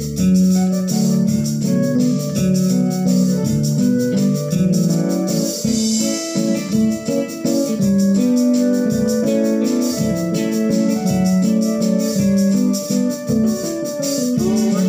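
Organ-voiced keyboard playing a hymn tune in held chords with a melody line over them, without singing.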